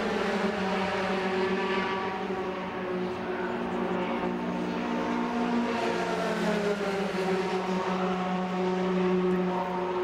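Engines of several racing pickup trucks running at speed on the oval, their pitches sliding up and down as they pass and overlap in a continuous drone.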